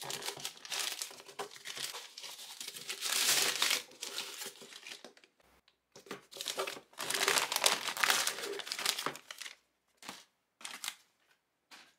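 Plastic poly mailer bag crinkling as a cardboard box is slid out of it. The rustling comes in bursts: one about three seconds in, a longer one from about six to nine seconds, then a few short rustles.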